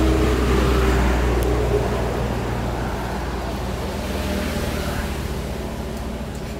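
A motor vehicle's engine running nearby: a steady low hum, loudest about a second in and slowly fading.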